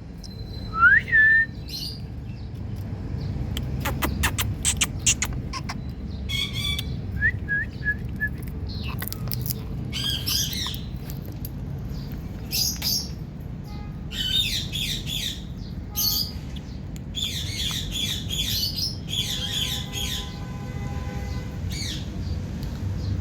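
Indian ringneck parrot calling: a rising whistle, then a quick run of clicks and a row of short chirps. After that come repeated harsh screeching squawks in bursts through the second half.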